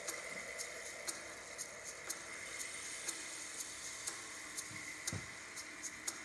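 Background music with a steady ticking beat, about two ticks a second, over a sustained high tone.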